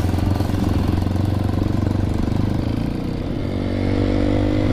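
Honda CRF dirt bike's single-cylinder engine running under way, easing off about three seconds in and then picking up again. The bike is not running right, and the rider says it dies when the throttle is opened.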